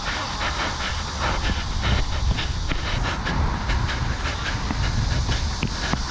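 Wind rumbling and hissing across a player-worn camera's microphone while the wearer runs, with a quick, uneven string of short thuds from footfalls.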